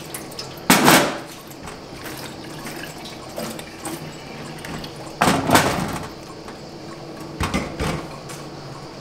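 Drained pasta being handled with a plastic colander and a plastic bowl at a stainless-steel sink. There are three short bursts of clattering: about a second in, a longer rustling spill about halfway as the pasta is tipped into the bowl, and a few knocks of plastic on steel near the end.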